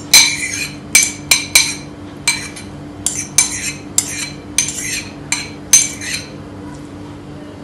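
Metal spoon knocking and scraping against a bowl while chopped peppers are scraped out of it: a quick, irregular run of sharp clinks with brief ringing, stopping about six seconds in.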